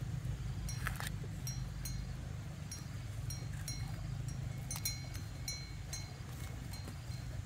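Dry corn husks rustling and tearing as ears of corn are peeled by hand, over a steady low rumble. Short high-pitched ringing notes come and go throughout.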